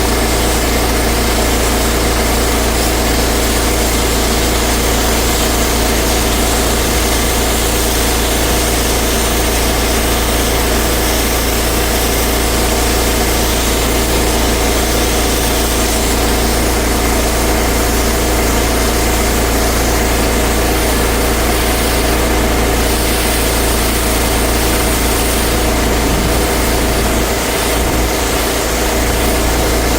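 Pressure washer's engine running steadily, with a hiss over it. The sound dips briefly near the end.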